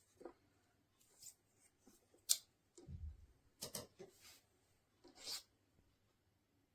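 A few short scrapes and clicks of hard objects being handled, the sharpest about two seconds in, with a dull thump about three seconds in and longer scrapes near four and five seconds.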